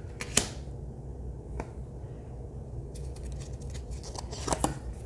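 Oracle cards being handled in a flip-through: scattered light clicks and taps as a card is slid off the deck and turned over, with a cluster about three seconds in and more near the end, over a low steady hum.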